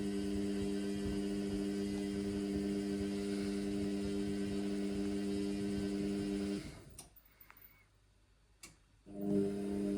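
Indesit washing machine drain pump humming steadily while the machine pumps out an overload of suds. It cuts out about two-thirds of the way through, leaving a near-silent gap with a couple of faint clicks, and starts humming again near the end.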